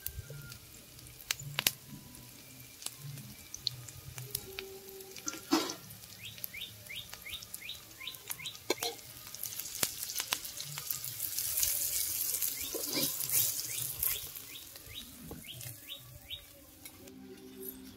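Sliced shallots, green chillies and curry leaves sizzling in hot oil in an aluminium kadai, with a metal ladle clicking and scraping against the pan. The sizzle swells and is loudest about two-thirds of the way through.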